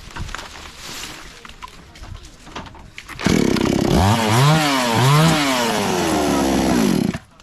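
Chainsaw engine starts running loudly about three seconds in, is revved up and down twice, then runs on with its pitch slowly dropping before cutting off suddenly near the end.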